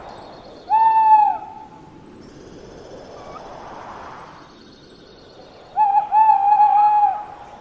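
Owl hoots for an animated owl logo: one falling hoot about a second in, then a longer run of quick hoots near the end. Between them runs a soft steady hiss with faint high tinkling.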